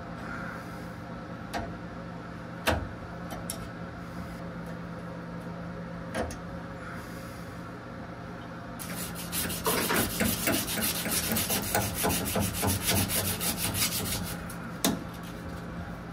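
Hand-tool work on the brass flare fittings of an air conditioner's TXV: a few sharp metal clicks, then about five seconds of fast, even rasping about halfway in. A steady low hum runs underneath.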